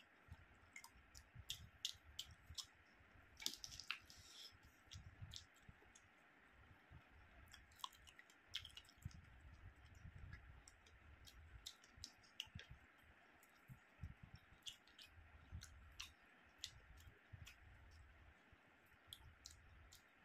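Faint chewing and lip smacking from a man eating roast chicken off the bone by hand, with many sharp wet mouth clicks at irregular intervals.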